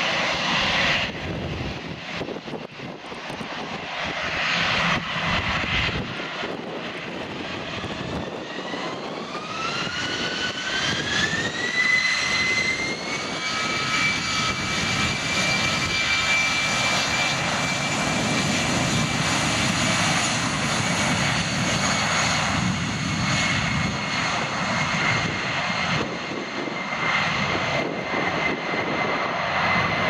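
Airbus A319's twin jet engines spooling up for takeoff: a whine rises in pitch over a few seconds about a third of the way in, then holds steady at takeoff power over a broad rushing noise.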